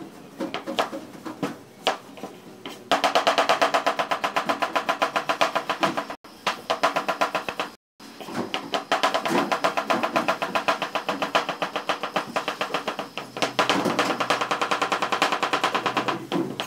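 Chef's knife chopping onion on a cutting board. There are a few scattered strikes at first, then from about three seconds in a fast, even run of knife taps on the board, broken twice by short gaps.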